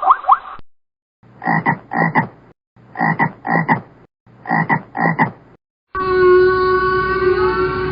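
Frog croaking in pairs: a short double croak played three times over, followed near the end by a longer, steady pitched call from another animal.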